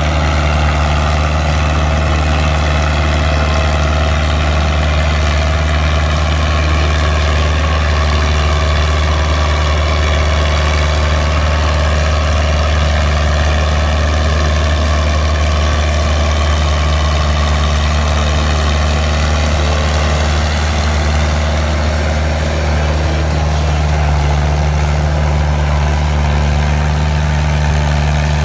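Fiat 80-66DT tractor's four-cylinder diesel engine running steadily at a constant speed while ploughing a paddy field, with a strong low engine hum.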